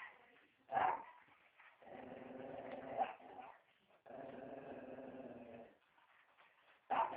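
Dog barking once, then two long growls of about a second and a half each, with a sharp bark near the end.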